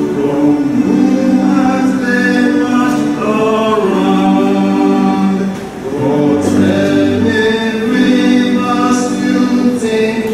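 Unaccompanied hymn singing: voices in harmony holding long notes, with a short breath between phrases a little before halfway.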